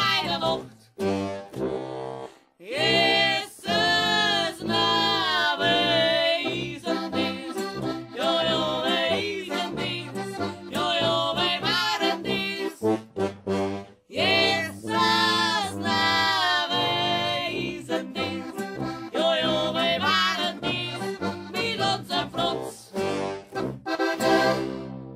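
Traditional Bavarian folk music from the radio, an accordion-led tune with brass, played over steady bass notes.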